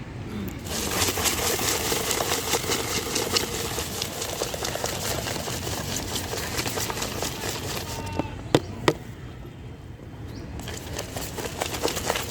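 Puffed rice being mixed for jhal muri in a metal container: a dense, rapid rattle for several seconds, followed by a few sharp metallic taps.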